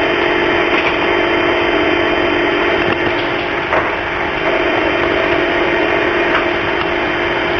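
Live feed from an alarm's audio-verification microphone inside burgled premises, heard over a phone line: a steady hiss and hum with a few faint knocks.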